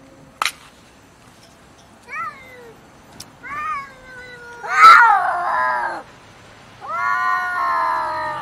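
Two cats in a standoff, yowling and caterwauling: short calls that rise and fall about two and three and a half seconds in, then a loud call opening with a sharp burst around five seconds, then a long drawn-out yowl near the end. A single sharp click sounds about half a second in.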